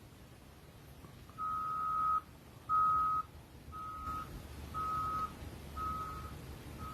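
Vehicle reversing alarm beeping about once a second, a single steady pitch, the first two beeps louder than the rest, over a faint low engine rumble.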